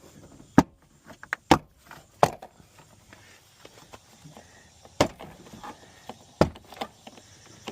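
Plastic retaining clips of a Toyota Tacoma's interior door panel snapping loose as the trim is pried off the door: about five sharp snaps spread over several seconds, with smaller clicks between.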